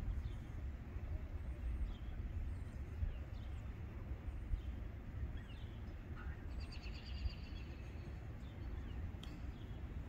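Male Anna's hummingbird singing: scattered thin, high squeaky chirps and a brief rapid buzzy trill about seven seconds in, over a steady low outdoor rumble.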